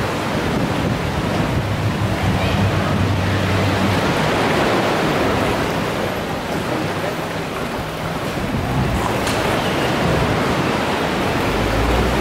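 Steady rushing noise of wind and sea surf.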